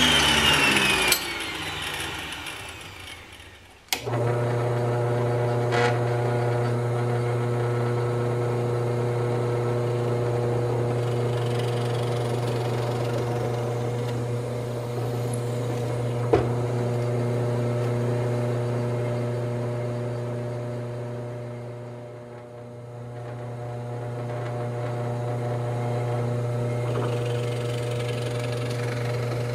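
A machine spinning down, its pitch falling as it fades, over the first few seconds. About four seconds in, a bench drill press motor starts suddenly and runs with a steady hum while drilling a clamped wooden block, with a single click partway through.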